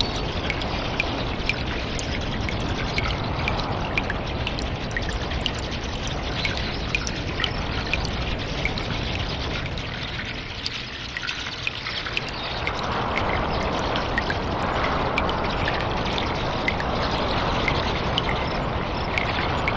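Water trickling and dripping in a cave: a steady wash of running water dotted with many small drip ticks. It thins out briefly near the middle, then comes back a little louder.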